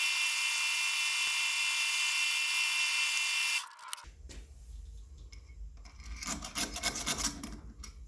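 Electric drill running steadily with a high whine, cutting off suddenly about three and a half seconds in. A few seconds later comes a short run of rough scraping strokes, like metal being filed or rubbed.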